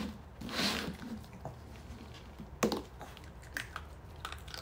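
Cups slid and shuffled across a hard floor with a short swish, then one sharp knock of a cup about two and a half seconds in. Faint ticks and taps follow as Maltese dogs nose around the cups.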